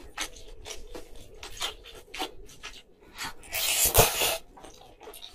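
Close-miked eating sounds of a person eating baked spaghetti: a run of small wet clicks and smacks from the fork and mouth, then a long, loud slurp of noodles about three and a half seconds in.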